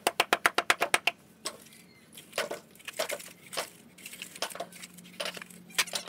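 Metal screed bar being worked over a bed of sand: a quick run of light clicks, about ten a second, for the first second, then scattered knocks and short scrapes.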